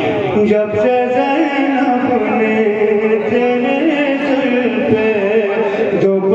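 A man chanting an Urdu naat, a devotional poem, in long held melodic notes through a public-address microphone, with a short pause for breath near the end.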